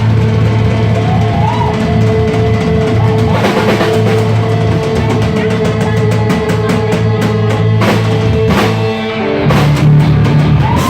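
Live band playing loud, with the drum kit up front: strikes come faster through the second half in a drum fill, over held guitar and bass notes. About a second before the end the band moves to a new, louder chord.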